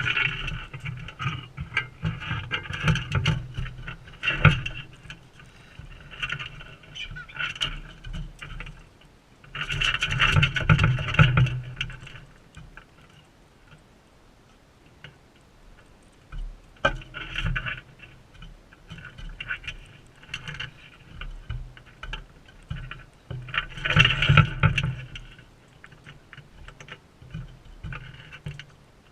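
Birds feeding at a seed feeder right beside the camera: bursts of scraping, tapping and clicking every few seconds, with quieter stretches between.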